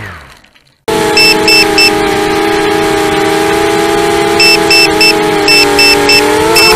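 Racing quadcopter's motor whine dying away as it crashes, then about a second of near silence. The motors then run on as a steady, even hum of several flat tones, with sets of three short high beeps repeating; near the end the tones shift as the throttle changes.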